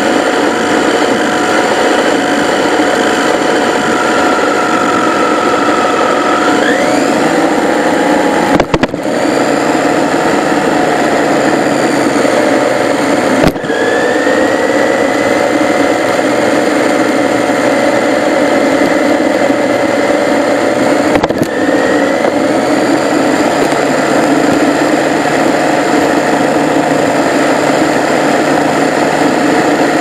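WLtoys K989 mini RC drift car's electric motor and gears whining at speed over road and tyre noise, as heard from a camera mounted on the car. The whine rises and falls in pitch as the throttle changes, and the sound briefly drops out three times.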